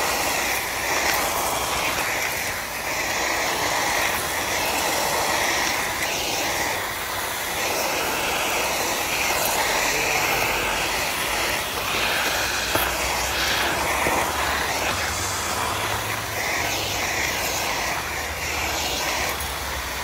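A 1400-watt water-filter (aquafilter) canister vacuum cleaner running steadily while its floor nozzle is pushed over paving tiles, sucking up crumbs and debris; the pitch of the suction wavers a little as the nozzle moves back and forth.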